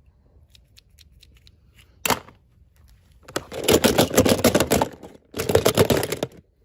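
Toy packaging being handled: a few small clicks, a short sharp rustle about two seconds in, then two long stretches of dense crinkling and tearing as the packaging is pulled open.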